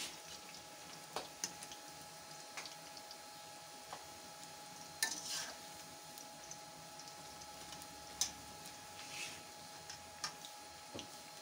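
Battered cauliflower pakoras deep-frying in hot oil in a wok, with a faint steady sizzle. Scattered sharp taps of a metal slotted spatula against the pan, the loudest about five and eight seconds in.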